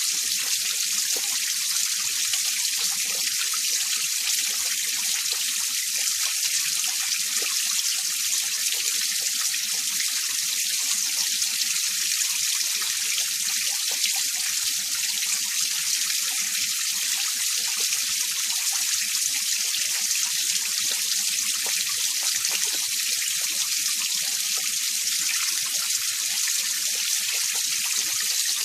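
Winter mountain stream running over rocks and ice: a steady, bright hiss of rushing and splashing water.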